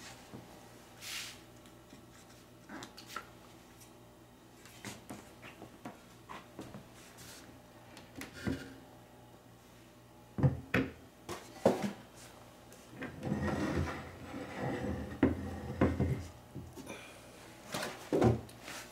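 Scattered knocks and scrapes as the metal frame of an elliptical trainer is handled and tipped up on end on a wooden floor, with a few seconds of rubbing noise about two-thirds of the way through.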